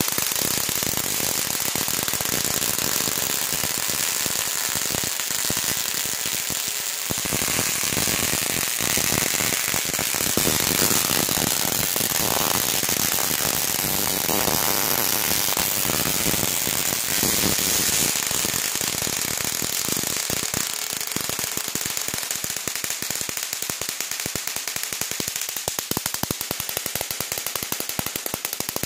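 Spark-gap Tesla coil running: a loud, rapid crackling buzz of sparks firing. Near the end the crackle thins into more spaced-out, separate snaps.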